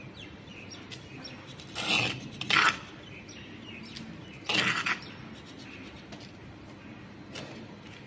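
Hand trowel scraping and scooping dry potting soil, with soil rustling and spilling. There are three short scoops, about 2, 2.6 and 4.7 seconds in.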